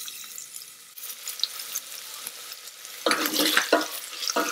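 Diced onion sizzling and crackling in hot oil in a stainless steel Instant Pot inner pot on sauté mode. About three seconds in, a silicone spoon starts stirring it, in several louder strokes.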